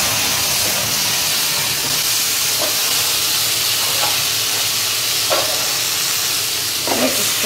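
Butter tadka with cashews and cream frying in a hot wide pan: a steady sizzling hiss.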